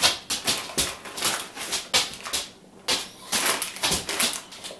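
A plastic dog-treat bag crinkling and crackling in rapid, irregular runs as a dog noses and pulls into it, with a brief lull about halfway.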